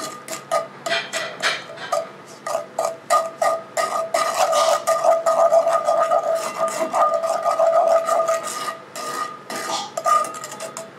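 Wooden spatula stirring and scraping melting butter and brown sugar in a cast-iron skillet, in quick repeated strokes. A steady high hum runs underneath.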